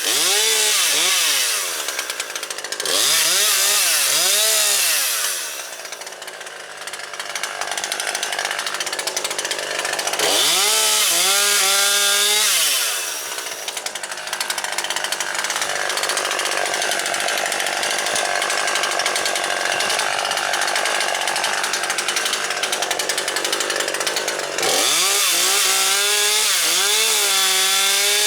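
Husqvarna 540XP Mark III two-stroke chainsaw revved up and down in repeated throttle bursts, with long stretches of steady full-throttle running while it cuts through branch wood.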